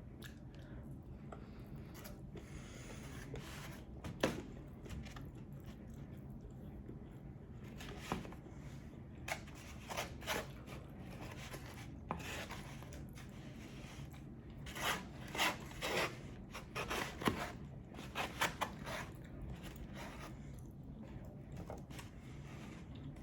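Close-miked eating sounds: chewing and wet mouth sounds from a mouthful of brisket and mac and cheese, in scattered short bursts with a few sharp clicks. The bursts come thickest in the second half.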